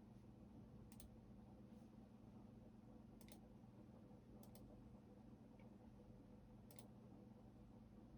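Near silence over a low steady hum, broken by four faint, isolated computer keyboard keystrokes, each a quick double click, spaced one to two seconds apart.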